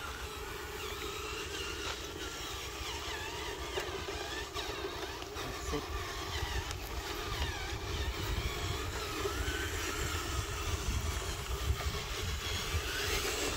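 Remote-control dump truck's small electric drive motor and gearbox whining steadily as it drives, over a low rumble.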